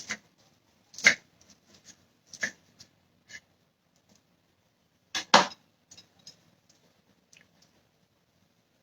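A knife sawing through a BLT sandwich: a few short crunching, scraping strokes, the loudest about five seconds in, then only faint ticks.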